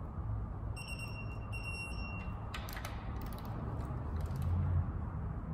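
Digital torque wrench beeping, a steady high tone about a second in that lasts a second or so with one short break, the signal that the bolt has reached its set torque; then a few sharp clicks.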